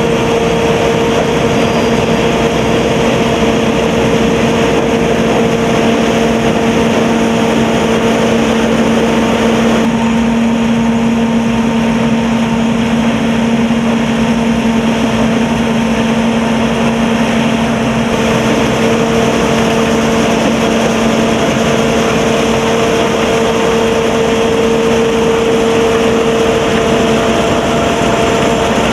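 Sakpattana corn combine harvester running steadily under load, a constant engine and machinery hum with a few held tones over a broad mechanical noise.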